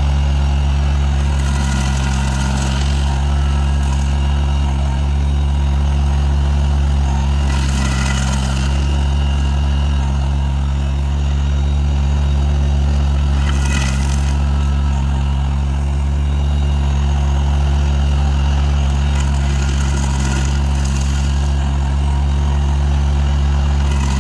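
Kubota BX2350 compact tractor's three-cylinder diesel running steadily under load, driving a PTO stump grinder. Four times there is a short burst of harsher, higher-pitched noise, as the grinder's cutter wheel chews into the stump.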